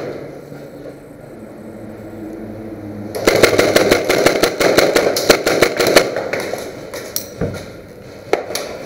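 Airsoft guns firing: a dense run of rapid shots starting about three seconds in and lasting about three seconds, then a couple of single shots near the end.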